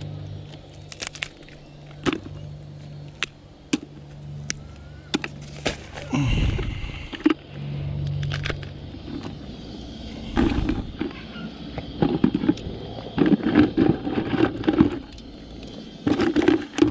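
Marron (freshwater crayfish) shells clicking, cracking and scraping against a plastic bucket as they are handled and their heads twisted off the tails. Sharp clicks come throughout, with louder rustling bursts about six seconds in and again from about ten seconds on.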